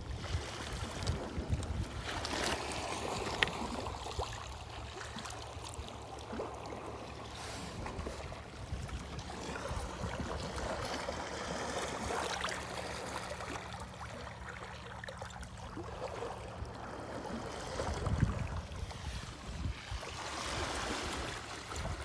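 Small sea waves lapping and washing over shore rocks and stones in shallow water, swelling and ebbing every few seconds, with a low steady hum underneath.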